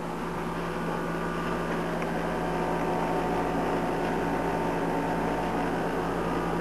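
Air conditioner running: a steady hum and hiss with a low, constant tone.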